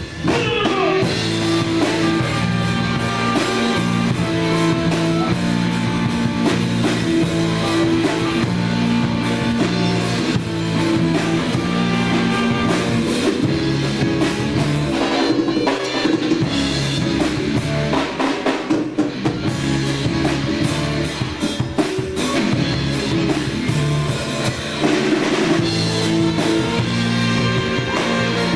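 Rock music with a drum kit, bass and guitar playing steadily, with a brief drop in loudness right at the start.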